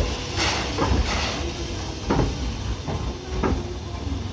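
C11 steam tank locomotive moving slowly onto a turntable: a steady steam hiss and low rumble with a handful of irregular clanks and knocks from the engine's running gear.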